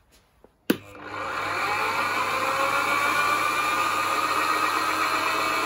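Parkside PDM600B2 wood lathe switched on with a click less than a second in, its motor whining up to speed with a rising pitch, then running steadily with a log spinning between its centres.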